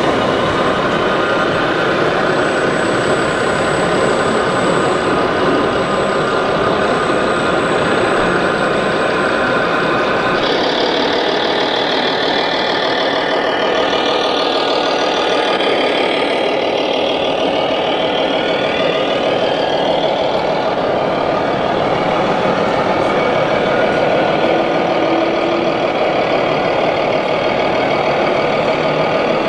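Simulated truck engine sounds from 1/14-scale radio-controlled trucks, idling and running steadily. The sound changes abruptly about ten seconds in.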